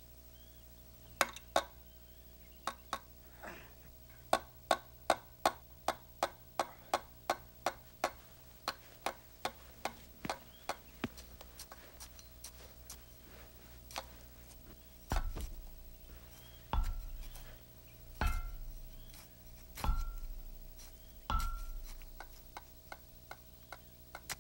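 Regular ticking, about two ticks a second, over a faint steady hum. About fifteen seconds in, five heavy blows from a long-handled tool land about a second and a half apart, each a deep thud with a short ring, and light ticking returns after them.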